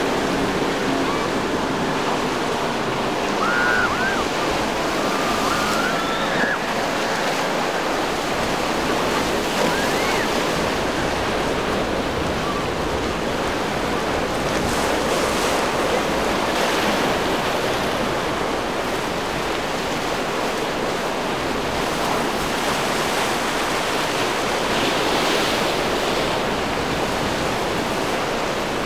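Surf and choppy inlet water washing steadily, with wind buffeting the microphone.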